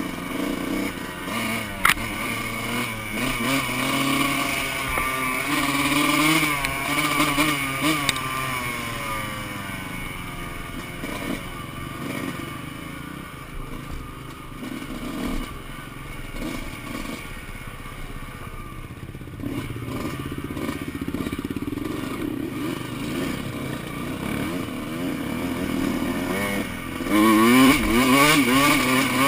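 2005 Kawasaki KX125 two-stroke single-cylinder dirt bike engine with an FMF shorty silencer, revving up and down with the throttle. It eases off in the middle and revs hard near the end, with a sharp knock about two seconds in.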